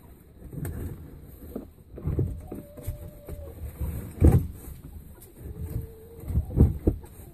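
A hen bumping and rubbing against the camera, making irregular knocks and rustles, the loudest about four seconds in and a quick pair near the end. Under them a hen gives two soft, drawn-out low calls, about a second long each.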